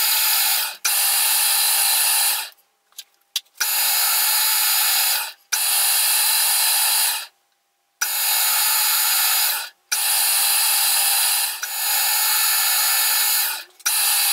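Metal lathe running in repeated bursts of a few seconds, switched on and off abruptly with short stops between, as a thread is cut on a cylinder part in successive passes. The sound is a loud, steady hiss-like machine noise.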